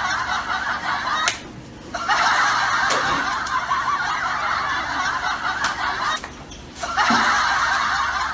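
Dense, continuous chorus of birds calling, as from a flock of fowl, broken twice by short sudden gaps.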